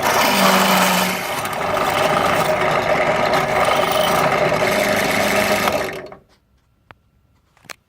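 Electric drill running as a 17/64 titanium-coated twist bit cuts through metal, steady under light feed, then stopping about six seconds in, followed by a couple of faint clicks.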